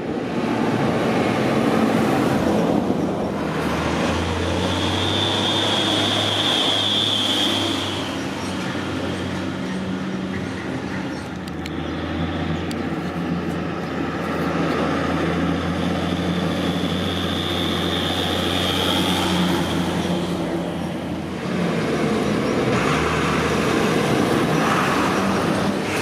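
Fendt Favorit 824 tractor's six-cylinder turbo diesel running steadily. A high, clear turbocharger whistle comes in twice for a few seconds.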